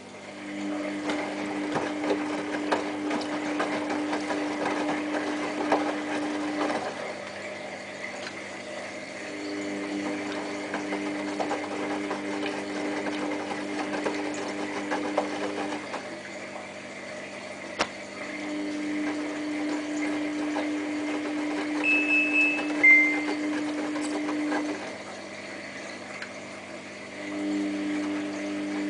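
Samsung WF8804RPA front-loading drum washing machine on a prerinse, its motor turning the drum in spells of about six seconds with short pauses between, the wet load sloshing and tumbling. Two brief high-pitched tones sound about 22 seconds in.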